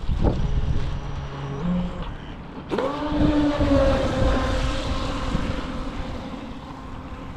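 Small RC speedboat's electric motor whining across the water, faint at first, then about three seconds in rising sharply and holding a steady high whine that slowly sags in pitch and fades. Wind buffets the microphone throughout.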